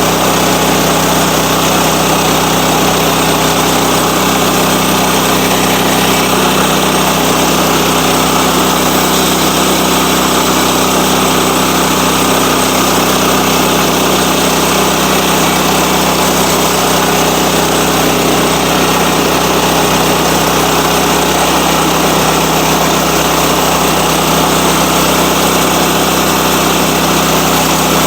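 Sawmill engine running steadily at a constant speed.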